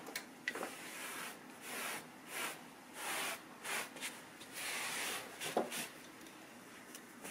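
Wooden-handled clothes brush swept over a felted wool coat in repeated short strokes, each a soft scratchy swish. There is a short knock right at the start.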